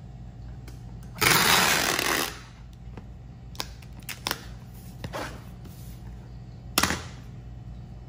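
Packing tape pulled off a handheld tape gun onto a cardboard box: one loud run of about a second, starting about a second in, then scattered clicks and taps as the tape is pressed down, with a sharp click near the end as it is cut.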